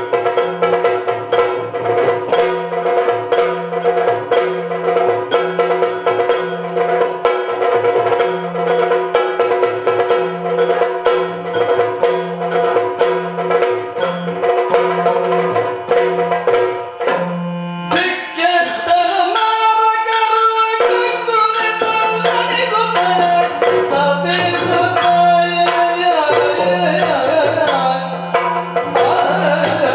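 Yakshagana background music: a steady drone with regular drum strokes and sharp time-keeping strikes. About 18 seconds in, a moving melody line enters over the drums.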